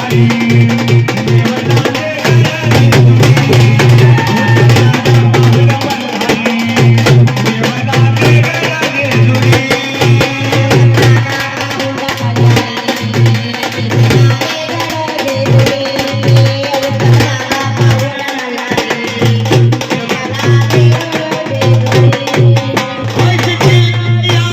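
Indian folk music without singing: a hand drum of the tabla or dholki kind beats a steady rhythm under a melodic instrument.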